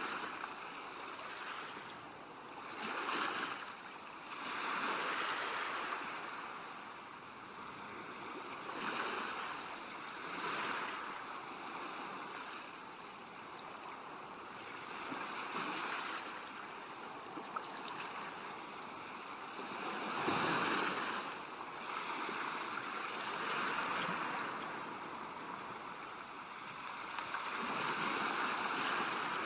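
Ocean waves breaking and washing ashore, the surf swelling and falling back every few seconds, with the heaviest break about two-thirds of the way through.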